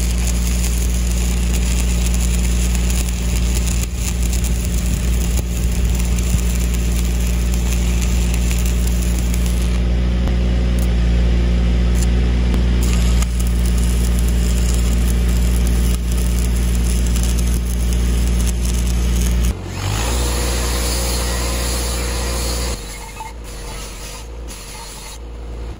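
Engine-driven welding machine running at welding speed during stick welding, with the arc crackling. About twenty seconds in, a handheld angle grinder starts up on the steel, and a few seconds later the welder's engine drops to idle.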